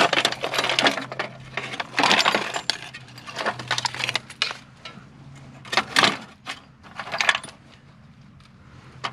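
Pieces of metal scrap clinking and clattering as they are handled and dug through in a pile, in several short bursts with pauses between.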